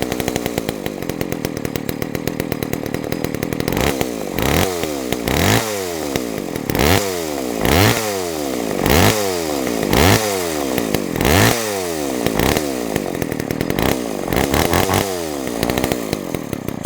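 Homelite XL two-stroke chainsaw running steadily for a few seconds, then revved over and over from about four seconds in, roughly once a second, its pitch rising and falling with each blip of the throttle. It has just been started after sitting unused for decades.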